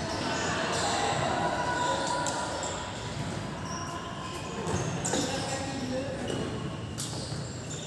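A football being kicked and bouncing on an indoor court in a large hall, heard as a few sharp knocks over players' voices.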